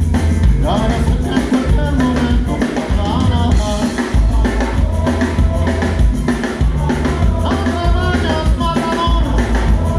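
Live band playing a rock tune during a sound check: a drum kit and bass keep a steady beat under a pitched melody line.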